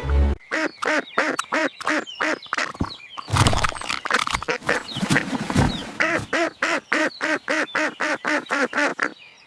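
Rapid run of duck quacks, about four to five a second, stopping shortly before the end.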